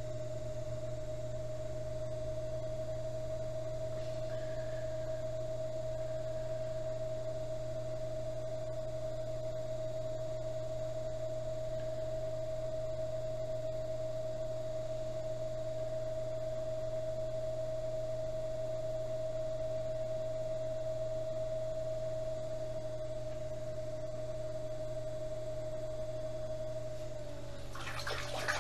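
Electric potter's wheel motor running under a pot being thrown, with a steady whine over a low hum. Near the end the whine dips slightly in pitch, and a brief splash follows as hands go into the water bucket.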